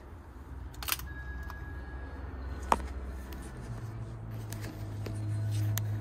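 A doorbell button being pressed: a couple of sharp clicks, the loudest about three seconds in, over handling noise and a low steady rumble.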